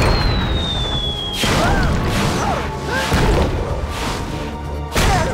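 Cartoon rockfall sound effects: a falling whistle gliding down in pitch as rocks drop, then a rumbling crash of rocks landing, with a sharp loud crash near the end, over background music.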